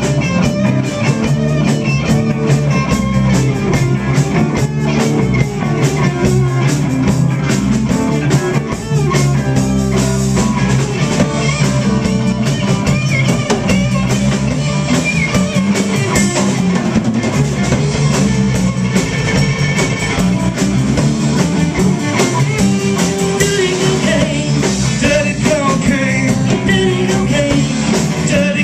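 Live blues band playing amplified: electric guitars, bass guitar and a drum kit, loud and continuous.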